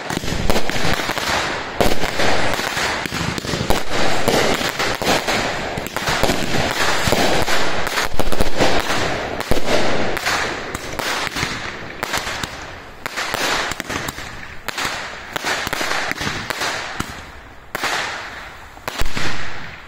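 Fireworks display: a dense, continuous barrage of bangs and crackling from aerial shells and rising comets. It thins out in the later seconds, then ends with one last loud burst.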